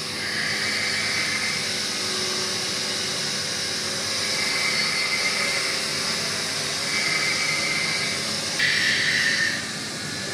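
A steady machine hum with a continuous grinding hiss, typical of a motor-driven grinder working steel; the hiss brightens and grows louder for about a second near the end.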